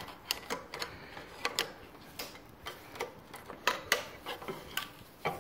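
Steel screwdriver clicking and scraping against the shifter parts deep inside an outboard lower-unit gearcase: a run of irregular small metallic clicks and taps.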